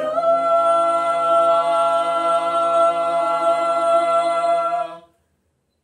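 Mixed four-voice a cappella group, two male and two female voices, holding the song's final chord. The chord is sung steadily for about five seconds, then cuts off cleanly.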